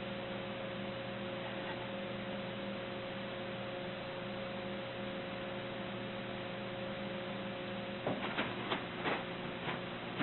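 Steady electrical hum with a constant hiss, then a few light knocks in quick succession near the end.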